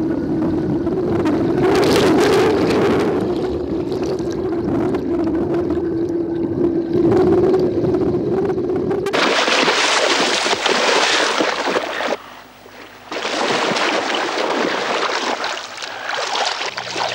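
A steady low drone for about nine seconds, then a sudden switch to a loud rush of water noise that drops out briefly near twelve seconds and returns.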